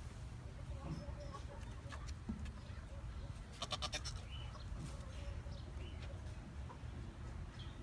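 Goat bleating: a short, high call about halfway through, with fainter short sounds after it.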